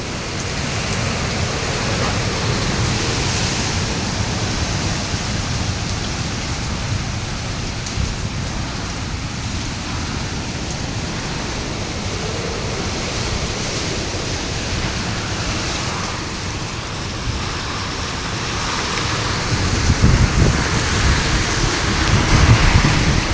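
Typhoon-force wind blowing hard with driving rain, a steady rushing noise. Low rumbling gusts buffet the microphone, growing stronger near the end.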